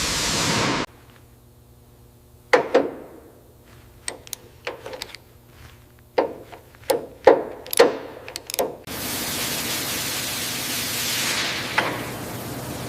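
A steady hissing spray cuts off about a second in; then a run of sharp, briefly ringing metallic clinks and knocks, loudest in a cluster around the middle; then the hissing spray starts again and runs on.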